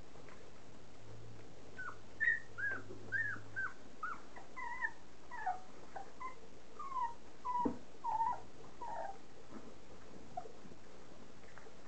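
Young standard poodle puppies whimpering and squealing in a rapid string of short, high-pitched cries, starting about two seconds in and dying away near the end. One sharp knock sounds about two-thirds of the way through.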